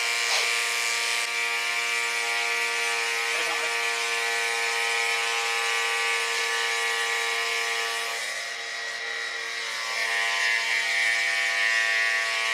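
Battery-powered electric oil transfer pump running steadily with a buzzing whine, pumping gear oil into the gearbox and transfer box. It dips slightly in loudness about eight seconds in, then comes back up.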